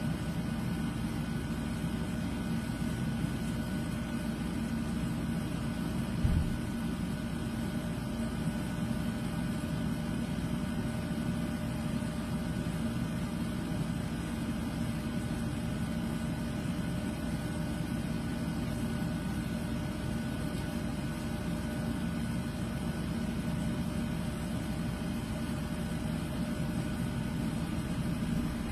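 Steady mechanical hum with a few held tones, like a motor or appliance running, and a short low thump about six seconds in.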